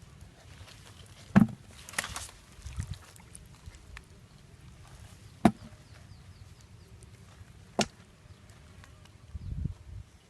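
Tool chopping into soil while digging a hole: three sharp strikes a few seconds apart, the first followed by a short scraping sound, with softer thuds in between.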